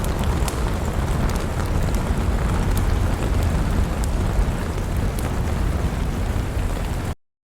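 Wood fire crackling in a fireplace: a steady low rumble of flames with scattered sharp crackles and pops, cutting off suddenly about seven seconds in.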